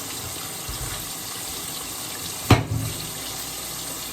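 Kitchen tap running steadily into a sink, with one sharp knock about two and a half seconds in.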